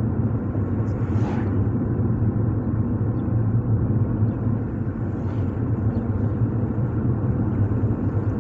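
Steady low rumble of a moving car, engine and tyre noise heard from inside the cabin, with a faint brief whoosh about a second in.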